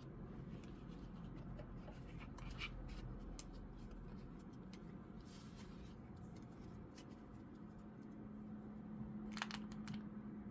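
Faint handling sounds of trading cards and their packaging: light rustling and scattered small clicks and scrapes, over a faint low hum.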